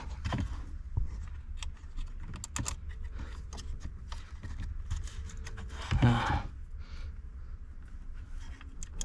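Plastic wiring-harness connectors clicking and scraping as they are worked by hand and pushed home into a car's dash module, with a short grunt-like voice sound about six seconds in.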